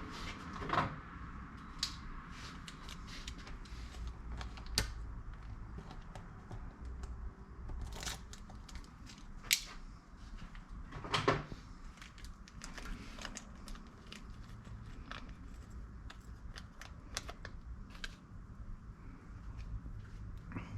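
Scattered light clicks and clinks of small metal hardware being handled: the hex nuts and washers of guitar tuning machines being set onto the tuner posts.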